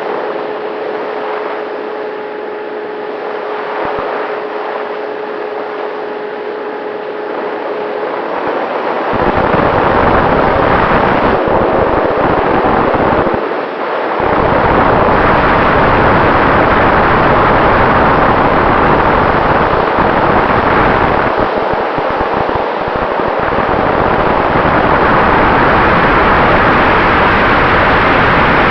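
Electric ducted fan of a Freewing F-15 RC jet (90 mm fan on an inrunner motor), heard through a camera mounted inside the fuselage. It gives a steady whine for the first several seconds. From about nine seconds in it turns into a much louder rushing noise, which dips briefly once near the middle.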